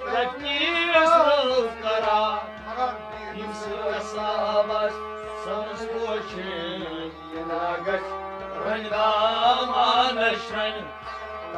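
A male voice singing a Kashmiri song, accompanied by a harmonium's held chords and a bowed string instrument, over a steady low beat of about two to three pulses a second.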